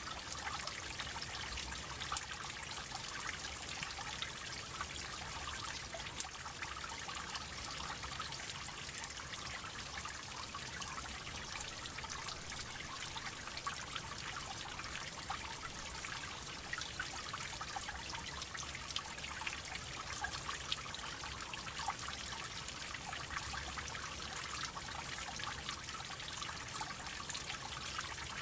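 Water droplets falling and trickling: a steady patter of many small drips over a continuous light splashing, with no pauses.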